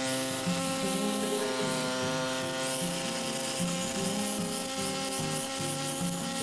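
Background music: sustained steady tones over a low melody that moves in short notes.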